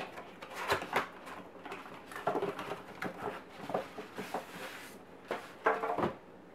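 Cardboard box being handled and turned over on a desk mat: irregular taps, rustles and scrapes of cardboard, with a longer scraping rustle about four seconds in.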